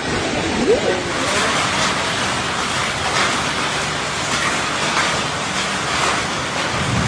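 Heavy rain mixed with small hail pelting down onto paving blocks and foliage, a loud, steady rushing downpour.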